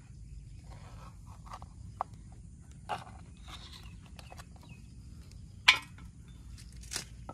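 Steady low outdoor background rumble with scattered faint clicks and taps, and two sharper clicks near the end, the first the loudest.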